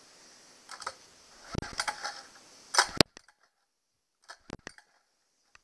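Short mechanical clicks and rattles from hands working on a Honda 8 hp outboard motor during a compression test, ending in one sharp loud click about three seconds in. A few fainter clicks follow about a second later.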